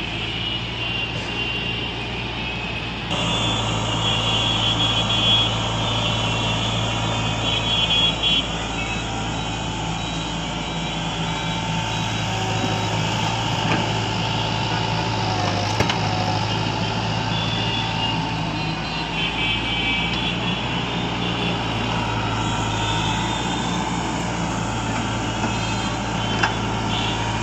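Tracked hydraulic excavator's diesel engine running under working load as it digs and swings, a steady low drone with a higher whine above it. It grows louder about three seconds in.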